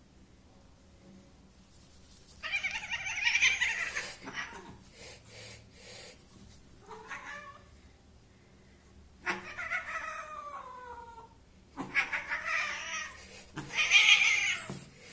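Domestic cat yowling while held on its back and handled: five drawn-out yowls with pauses between, one short, some falling in pitch, the loudest near the end.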